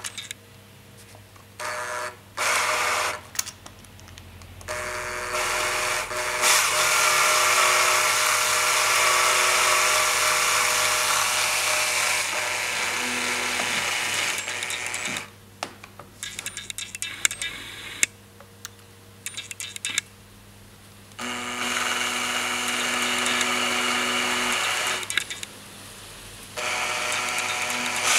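Power drill spinning a Land Rover 2.25 diesel injector's nozzle pin inside its housing, lapping the stuck seat with toothpaste as grinding paste. The motor runs with a hiss in a few short bursts, then for about ten seconds, stops for a few seconds with some clicks, and runs twice more.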